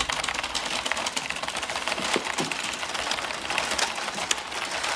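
Very fast typing on a computer keyboard: a dense, unbroken rattle of key clicks that starts abruptly.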